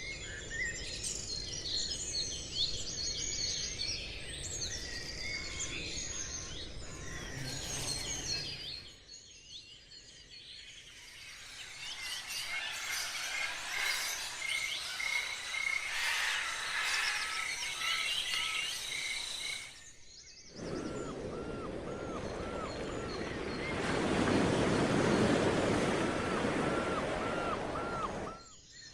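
Several birds singing and calling over a steady background hiss, in three abruptly joined sections. In the last section a louder low rush sits under one bird repeating the same short call over and over.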